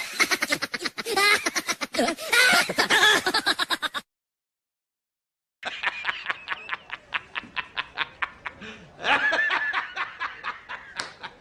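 Rapid, pulsing laughter lasting about four seconds, cut off into silence, then a second stretch of rapid laughter starting just before the middle and running about six seconds.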